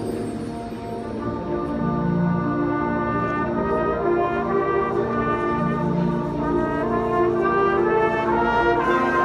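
A winds ensemble of brass and saxophones plays held, swelling chords, with low brass notes underneath. It grows louder after the first second.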